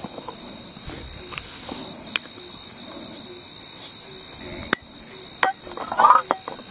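Butane gas canister of a portable camping stove being handled and fitted onto the stove, giving a few sharp metallic clicks and a short clatter near the end, over a steady chirring of night insects.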